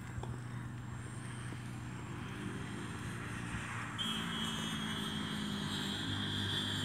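An engine running steadily. About four seconds in, a louder steady high whine and a deeper hum join it.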